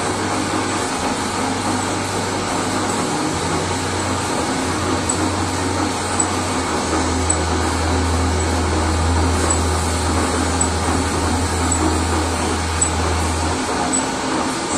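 Metal lathe running steadily under power, with a faint high tick about twice a second. A low hum grows stronger about halfway through and falls away shortly before the end.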